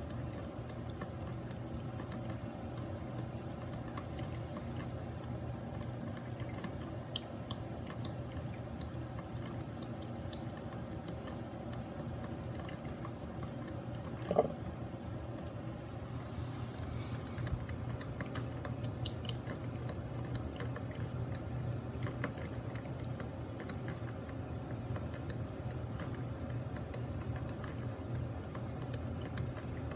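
Mr. Coffee BL5 4-cup drip coffee maker brewing: a steady low hum under irregular crackling and ticking, with a short gurgle about halfway through.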